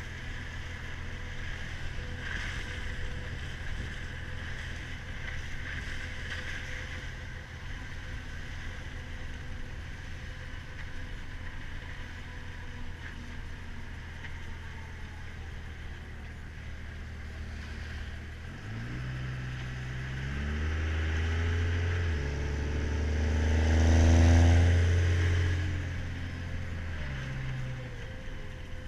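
Cummins turbo-diesel truck engine running steadily at a low idle for about eighteen seconds, then its pitch climbs as it revs up or pulls away. It is loudest a few seconds later and then winds back down near the end.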